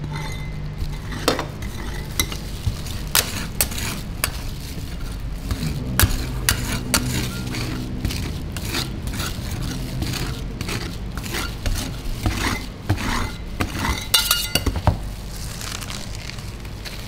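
Metal spatulas scraping and tapping on a steel rolled-ice-cream cold plate as the mixture is spread and chopped: irregular clinks and scrapes, with a quick cluster of sharp taps near the end.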